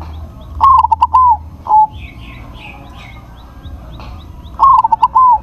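Crossbred zebra dove (perkutut) cooing: two loud phrases of quick, stuttering notes, one about a second in and one near the end. Small birds chirp faintly in the background.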